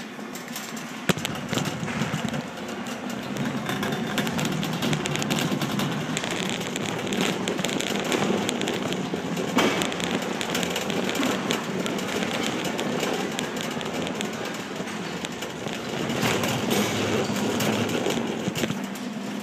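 Loaded shopping cart rolling across a concrete floor: a continuous crackling rattle over a low rumble, which swells again near the end.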